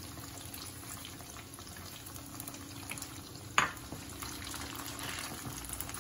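Egg tofu slices sizzling in hot frying oil as they are scooped out with a slotted ladle, with one sharp knock of the ladle against the pan about three and a half seconds in.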